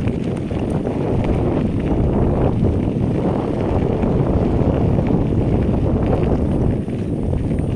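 Wind buffeting a handheld phone microphone on a moving bicycle: a loud, steady, rumbling rush of noise.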